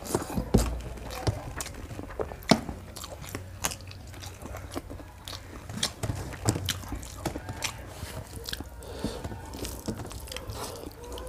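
Close-miked chewing of a mouthful of rice and chicken curry eaten by hand, with many short, sharp wet mouth clicks and smacks.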